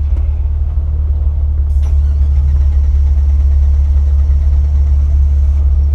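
Jeep Wrangler LJ's engine running at low revs, a steady low rumble, with a brief knock about two seconds in.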